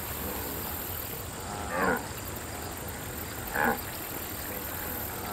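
Two short, low animal grunts about two seconds apart, each a single pitched call: a cartoon wildebeest vocalising over a steady background hiss.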